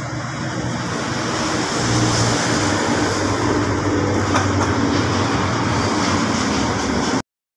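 Steady engine hum with outdoor background noise. It cuts out abruptly near the end.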